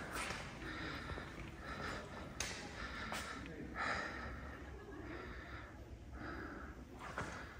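A man breathing hard close to the microphone, in soft puffs every half second to a second, as after climbing stairs. Two sharp clicks come a little after the middle.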